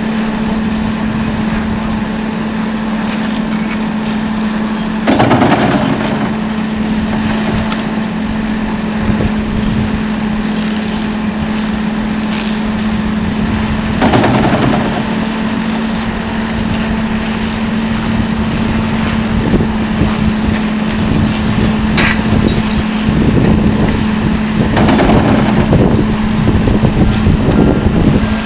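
Volvo EC 480E long-reach excavator's diesel engine and hydraulics running under load with a steady hum. Louder scraping rushes come about five seconds in, again about fourteen seconds in and near the end, as the bucket works the rock and soil bank, with one sharp knock shortly before the last.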